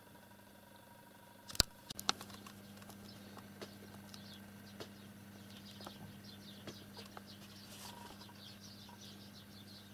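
A sharp click about one and a half seconds in and a couple of lighter knocks, then faint, rapid, scratchy ticks: a cat licking another cat's fur with its rough tongue.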